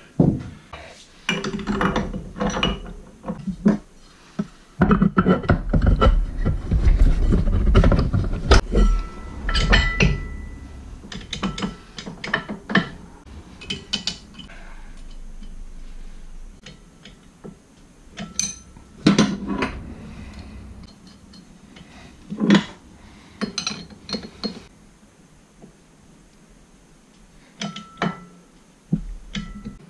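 Hand tools and metal clutch parts clinking and clanking while a wrench works the centre nut of a Can-Am ATV's CVT secondary clutch. Irregular knocks and clinks, some ringing briefly, busiest in the first ten seconds, then sparser.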